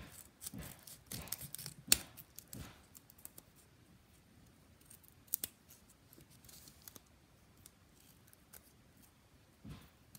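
Scissors cutting through several layers of folded paper: a run of snips in the first few seconds with one sharp click of the blades, then a quieter stretch with a few scattered snips.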